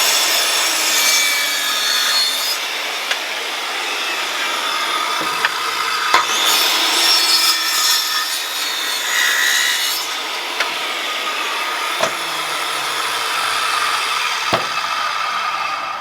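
Power saw cutting through a yellow pine 2x12 at a 45-degree angle, running steadily and cutting off abruptly at the end.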